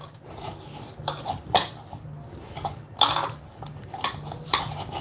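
Kitchen utensils and dishes being handled on the counter: a few separate knocks and scrapes.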